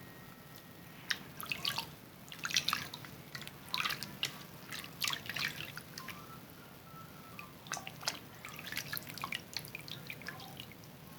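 Wet Zest bar soap being lathered by hand: irregular quick squishy, crackling clicks of soap and suds, with wet dripping sounds. They start about a second in.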